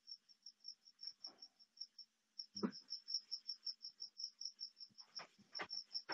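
A steady insect chirping, a high-pitched pulse about five times a second, breaking off briefly about two seconds in. A few sharp clicks or knocks cut through it, the loudest about two and a half seconds in and several more between five and six seconds in.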